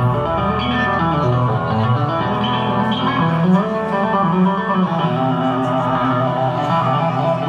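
Electric bass solo played live through a concert PA: a steady stream of notes and chords moving up and down in pitch, rich in overtones.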